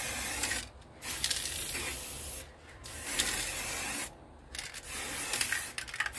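Aerosol can of black satin spray paint hissing as it sprays the inside of a metal tray, in four bursts of about a second each with short breaks between.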